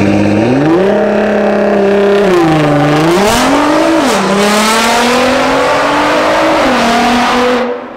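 Nissan GT-R R35's twin-turbo V6 engine revving, its pitch climbing and dropping several times, then holding and slowly sinking, inside a concrete underpass. The sound cuts off abruptly near the end.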